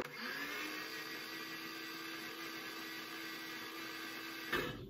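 Mini food processor motor spinning up with a short rising whine, then running at a steady pitch, and cutting off sharply near the end. It is blending garlic scape pesto while olive oil is drizzled in slowly to emulsify it.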